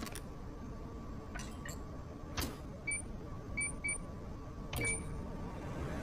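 A few clicks, then a microwave oven's keypad beeping four times, short single-pitch beeps with the last one slightly longer, as the oven is set and started.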